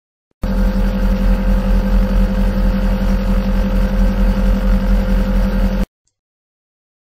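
Air-conditioner compressor running with a steady low hum and a regular pulsing throb, a sample of compressor internal resonance noise. It starts about half a second in and cuts off suddenly about a second before the end.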